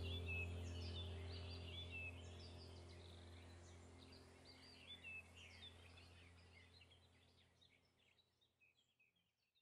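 Faint birdsong, quick high chirps over a steady low hum, fading out gradually until nearly silent at the end.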